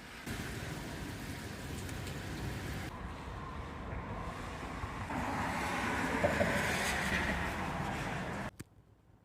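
Thunderstorm noise: a low rumble of thunder mixed with wind, swelling to its loudest about six to seven seconds in, then cutting off suddenly near the end.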